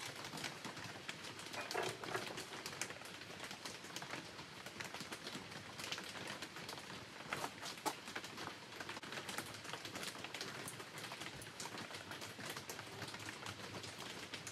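Scattered faint clicks and taps of gloved hands handling a car window regulator and its gears in a bench vise while greasing them, with no steady machine sound.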